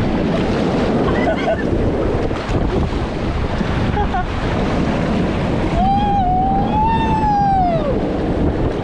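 Loud, steady rushing of water with wind noise on the microphone, under scattered voices and one drawn-out, wavering high shout about six seconds in.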